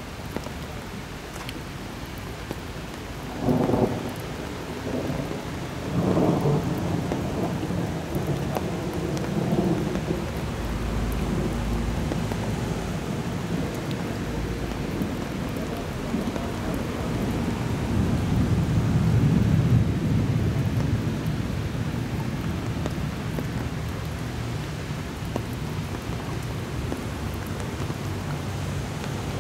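Thunderstorm: steady rain, with a sharp thunderclap about three and a half seconds in and another around six seconds, followed by long rolling thunder that swells again past the middle.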